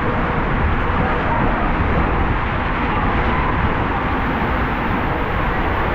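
Steady, loud rushing of water and rumble of a rider sliding down an enclosed indoor waterslide tube.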